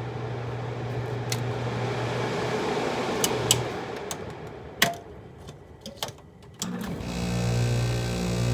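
Carrier window air conditioner's fan running on low with a steady hum and a few sharp clicks. About seven seconds in, a louder, pulsing low hum starts suddenly: the compressor kicking on, with the unit shaking.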